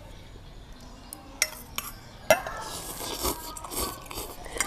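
Chopsticks clinking against small stainless steel bowls, one sharper clink with a brief ring a little past two seconds in, followed by noodles being slurped.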